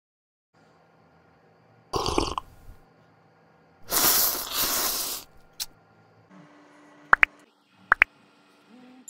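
Eating sound effects for a figure at a noodle bowl: a short gulping noise about two seconds in, then a longer, loud slurp. Near the end come two sharp clicks, each with a brief ring. A faint hum lies underneath.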